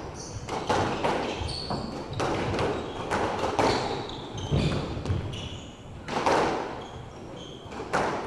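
Squash rally: the ball is struck by rackets and smacks off the court walls, a sharp echoing crack every half second to a second, with short sneaker squeaks on the hardwood floor between the shots.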